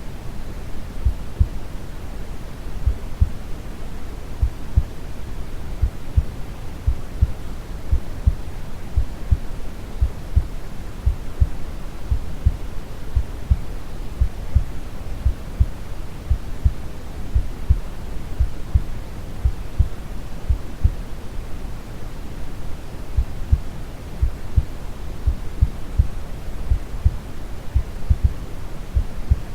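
Brown noise, a steady deep rushing hiss, with a slow, calm heartbeat of regular low thumps over it.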